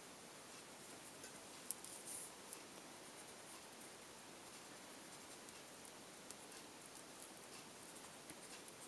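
Faint scratching of a pencil tip rubbing on paper in small strokes while colored-pencil work is blended. A few louder scratches come about two seconds in.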